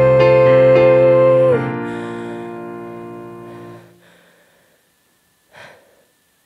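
A woman holds a long sung note over piano chords and cuts it off about one and a half seconds in. The piano chord rings on and slowly fades away, and a short breath is heard near the end.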